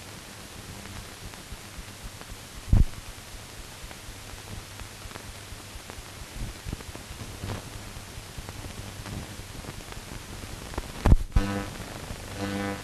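Surface noise of a silent film transfer: a steady hiss with scattered clicks and pops, one loud pop a little under three seconds in and two more near the end. A low buzz comes in near the end.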